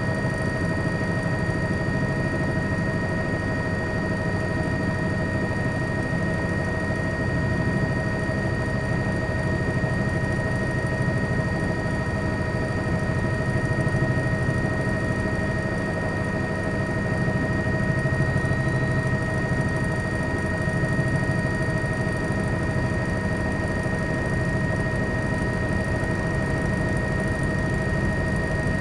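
Steady aircraft engine drone: a low rumble with several constant whining tones over it, unchanging throughout.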